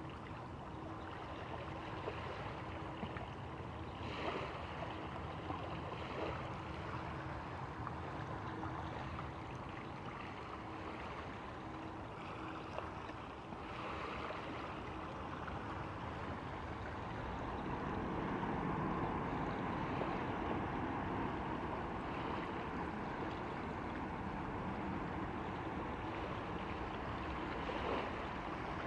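Airbus A330-300 jet airliner landing and rolling out: a steady rush of jet engine noise. It swells to its loudest a little past halfway through, during the landing roll on the wet runway.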